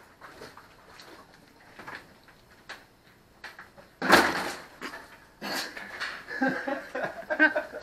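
A five-gallon plastic water jug is set upside down onto a water cooler with a loud thump about four seconds in, followed by irregular glugging as water drains into the cooler and air bubbles up into the jug.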